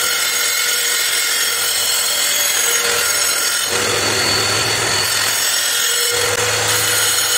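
Electric tile saw running steadily while its blade cuts through agate, a constant motor whine over a grinding hiss. A little past halfway, and again briefly near the end, the grinding changes character as the rock is moved against the blade.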